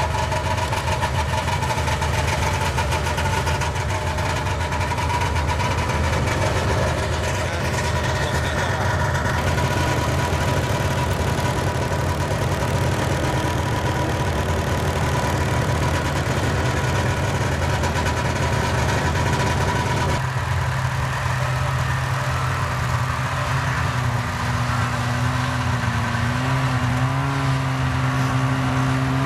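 Snowmobile engine running steadily under way. About two-thirds of the way through its sound changes, a clearer engine tone standing out, and near the end the pitch wavers slightly.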